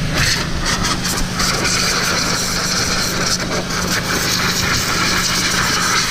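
Kärcher 2400 PSI pressure washer running steadily, its high-pressure jet hissing as it sprays a dirt bike. The hiss of the spray grows louder about a second in.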